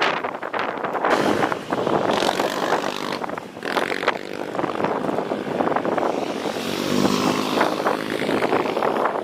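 Strong wind buffeting the microphone in gusts, with an engine droning steadily underneath.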